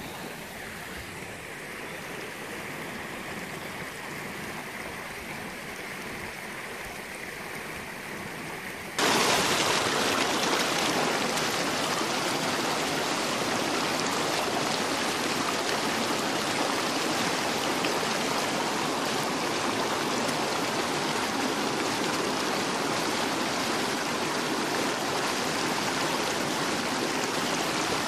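Small mountain stream rushing over rocks and little cascades, a steady noise of flowing water. About nine seconds in it cuts abruptly to a louder, closer rush of water.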